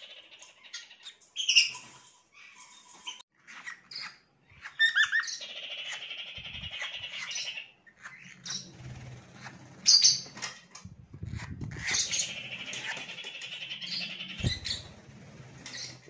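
Pet lovebirds chirping, with sharp single chirps and two stretches of fast, continuous high-pitched chattering, each a couple of seconds long. A low rumble runs under the second half, and there is a single thump near the end.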